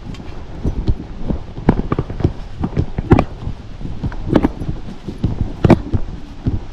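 Footsteps of someone walking over rough ground: a run of irregular knocks and clicks, several a second.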